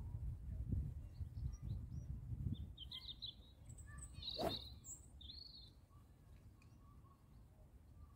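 A single sharp strike of a golf driver hitting a ball off the tee, about halfway through. Birds chirp around it, and a low wind rumble on the microphone fades out in the first few seconds.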